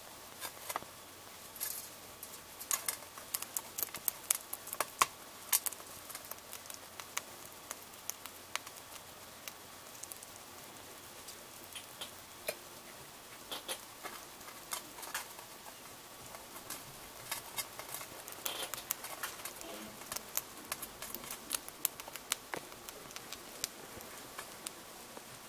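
Golden hamster chewing a flat-horn hissing cockroach, its teeth cracking the hard shell: irregular sharp crunches and clicks, thickest a few seconds in and again in the second half.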